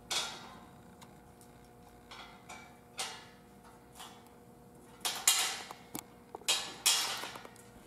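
Steel tree stand parts knocking against each other as the platform frame is raised and its holes lined up with the ladder: a few single sharp clicks, then a quick run of metal clanks and scrapes in the last few seconds.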